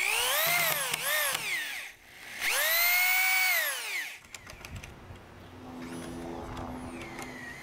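DeWalt drill driving 3-inch screws through the plywood transition into a 2x4 stud. There are two runs, each rising in pitch as the motor spins up and then falling away, and the first dips briefly about a second in. After about four seconds it is quieter, with scattered clicks.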